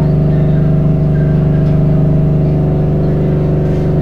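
An engine running steadily at constant speed: a loud, even drone that does not change.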